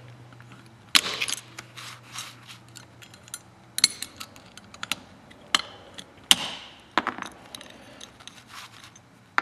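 Steel curved pick clicking and scraping against the shoes and coil springs of a 139QMB scooter centrifugal clutch as a clutch spring is pried off. Scattered sharp metal clicks and short scrapes, the loudest about a second in and several more between four and seven seconds in.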